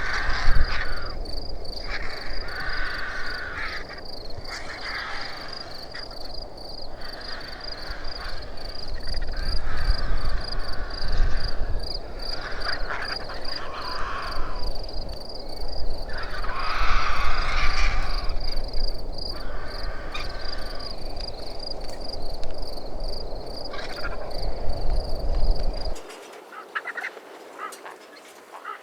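A large bird giving a series of harsh, honk-like calls, one every second or two, over a steady pulsing high insect buzz and a low rumble that cuts off abruptly near the end.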